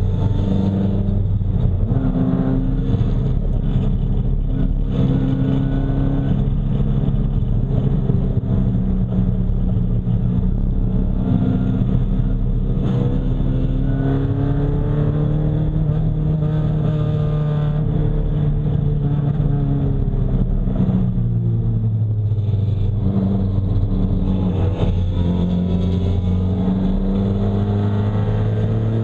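Nissan 240SX race car's engine at racing speed, heard on board: its pitch climbs through the revs and drops back several times as the car accelerates, lifts and shifts.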